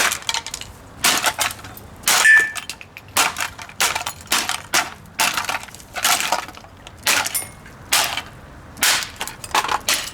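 Repeated hard blows smashing an SMC plastic table fan, about two strikes a second, with plastic cracking and breaking.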